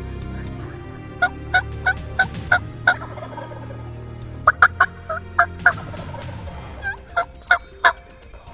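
Turkey yelping: three runs of short, evenly spaced yelps, about three a second, with six, six and four notes.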